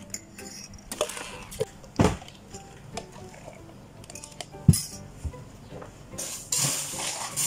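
Drink-making clatter behind a café counter: glassware and utensils clinking, with a few sharp knocks (the loudest about two-thirds of the way through) and a short rushing noise near the end, over background music.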